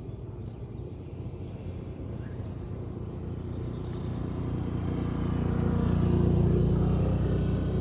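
A motor vehicle going past: engine noise grows louder, peaks about six seconds in, then begins to fade.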